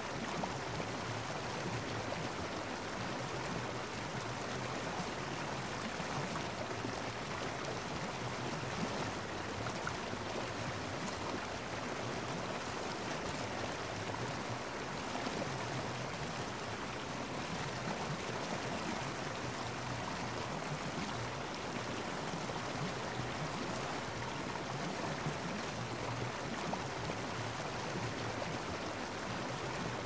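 Steady, unbroken rushing of flowing water.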